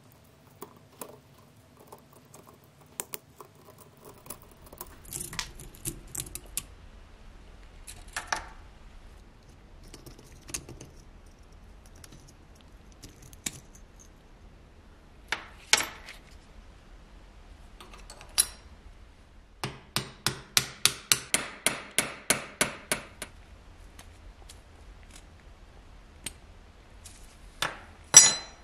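Small rusty steel gears and clockwork parts clicking and clinking against pliers and each other as the tin toy's wind-up motor is taken apart. A run of rapid, even metal clicks, about five a second, lasts some three seconds after the middle, and a louder clatter of parts comes near the end.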